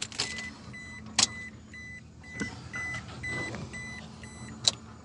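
Toyota Hilux dashboard warning buzzer beeping in a quick, even run of short high beeps as the ignition is switched on, with two sharp clicks, one about a second in and one near the end.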